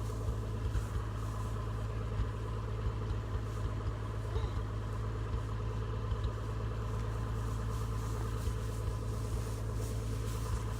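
Tractor engine running at a steady speed, with faint irregular clicks over the drone.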